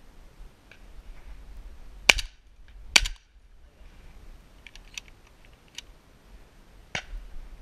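Two loud shotgun shots about a second apart, a couple of seconds in, then a few light clicks and a fainter bang near the end.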